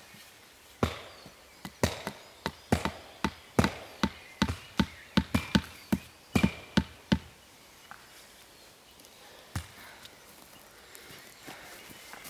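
An axe chopping wood: a quick, uneven run of sharp strikes, about two to three a second, stopping about seven seconds in, with one more strike a little later.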